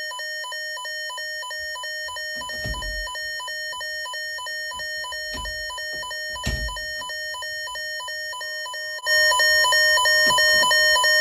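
Weather radio alarm going off for the weekly NOAA alert tone test: a rapid, evenly pulsing electronic beep that alternates between two pitches over a steady higher tone, with a few dull knocks. About nine seconds in it gets louder and a steady tone joins.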